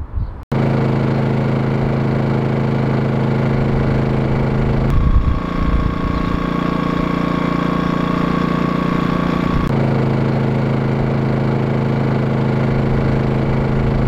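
Honda EU22i portable inverter generator's engine running steadily. It cuts in abruptly about half a second in, and its engine note changes for about five seconds in the middle, with a steady higher tone, before returning to the first note.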